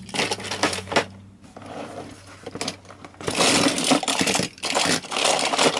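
Diecast metal toy cars clinking and rattling against one another and a plastic box as a hand rummages through them. A few scattered clicks at first, then a dense, continuous clatter from about three seconds in.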